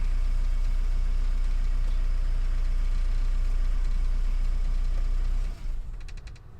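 Renault Mégane 1.9 dCi four-cylinder diesel engine idling steadily. About five and a half seconds in it is switched off and runs down.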